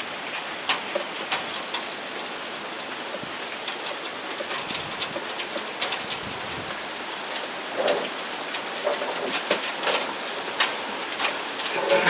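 Thunderstorm rain falling steadily, with frequent sharp drops striking a nearby surface. The drops are louder and thicker about eight seconds in and again near the end.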